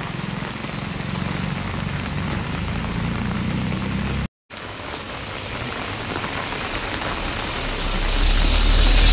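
Bus engine running with a low hum under a steady hiss of road and wind noise. The sound drops out completely for a moment just after four seconds in, and grows louder near the end.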